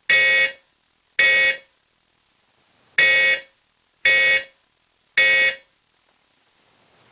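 Simplex 4051 fire alarm horn, rated 110 decibels at 10 feet, sounding in code 3. It gives half-second blasts: the last two of one round of three, a pause of about a second and a half, then a full round of three.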